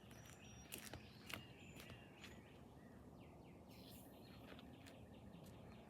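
Near silence: faint background hiss with a few soft clicks and faint high chirps.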